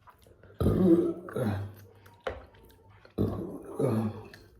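A person's voice in four short bursts, with a sharp click near the middle.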